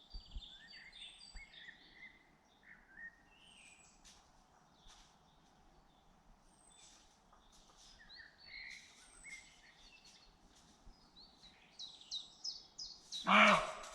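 Several songbirds singing and chirping with short high whistles and trills. A single loud, harsh bark cuts in near the end.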